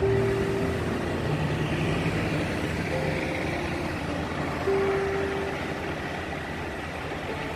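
Road traffic at a bus terminus: double-decker buses and a truck running and pulling through, a steady engine rumble with a few short held tones over it.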